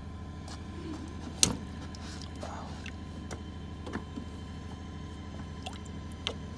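Hands working inside a water dispenser's plastic reservoir tank with a little water in it: faint splashing and scattered knocks against the tank, the sharpest about one and a half seconds in, over a steady low hum.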